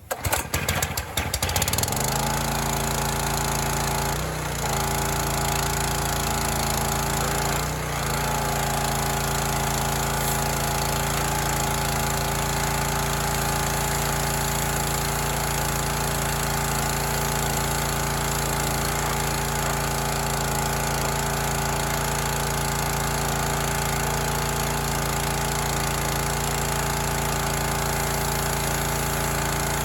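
Rato 209 cc single-cylinder four-stroke engine (a Honda clone) on a pressure washer, recoil-started with the choke on: it catches within about two seconds and then runs steadily at governed speed, with two brief dips in speed.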